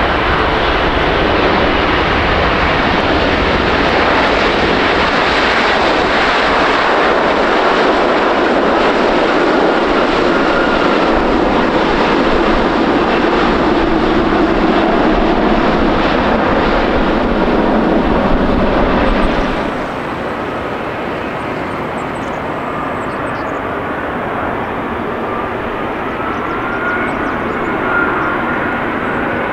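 Air India Boeing 777-300ER's GE90-115B jet engines, loud and steady as the airliner rolls out on the runway after landing. About two-thirds of the way through, the sound cuts to a quieter, more distant jet noise: a British Airways Boeing 777-200ER on final approach. Its engines carry a faint whine that rises near the end.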